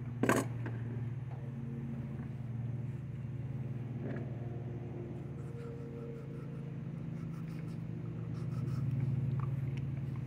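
Steady low mechanical hum that swells a little near the end, with one sharp click just after the start.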